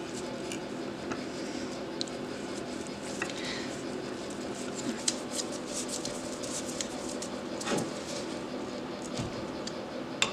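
Scattered light metallic clinks and clicks of hand tools (a tap wrench, a T-handle hex key) and a cast-iron part being handled on a steel fixture plate, over a steady low hum.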